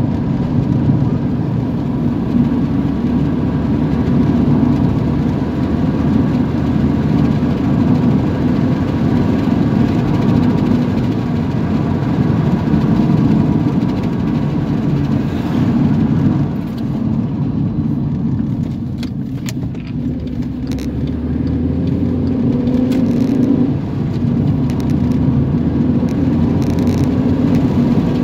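Car interior noise while driving: steady engine and road rumble, easing off a little past the middle, then a rising engine note as the car picks up speed again.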